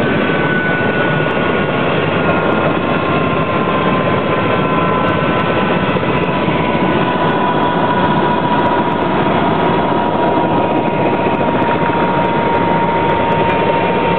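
Helicopter turbine and rotor noise heard from inside the cabin: a loud, steady rush with a high whine that slowly falls in pitch.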